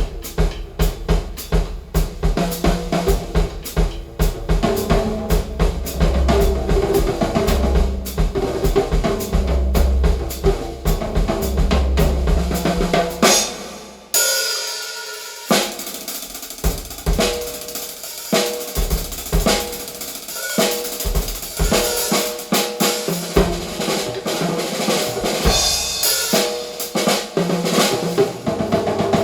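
A drum-kit percussion track, with kick drum, snare and cymbals, played back loud through a hi-fi speaker system of midwoofers, Heil ESS AMT-1 air-motion tweeters and two REL S/812 subwoofers. About halfway through, the kick and snare stop briefly, leaving a cymbal wash, then the beat comes back in.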